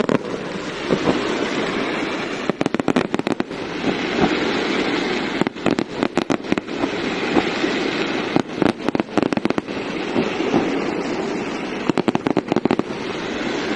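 Fireworks going off: repeated volleys of rapid, sharp crackling pops over a steady rushing noise.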